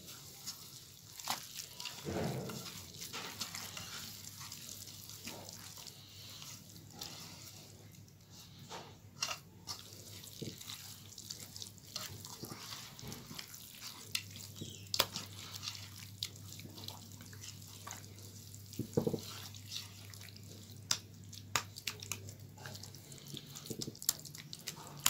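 A hand mixing a crumbly gram-flour and spice mixture in a metal bowl: soft rustling and squishing, with scattered light clicks of fingers and flour against the bowl.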